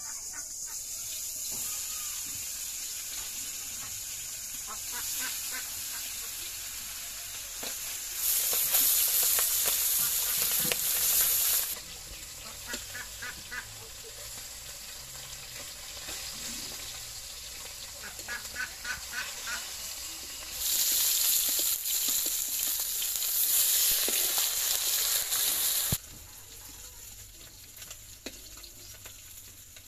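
Pabda fish pieces frying in hot oil in a steel wok, sizzling steadily. The sizzle swells much louder twice, about eight seconds in for a few seconds and again from about 21 to 26 seconds, and drops back quieter near the end.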